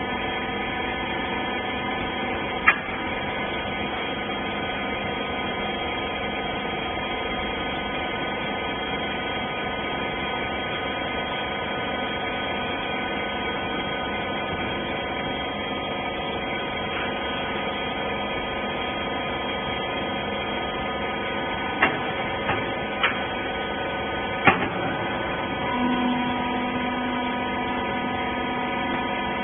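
Hydraulic bagging baler running with a steady machine hum made of several constant tones. A sharp clank comes about three seconds in, and a few more come in quick succession near the end. Shortly after those, a new steady tone joins the hum.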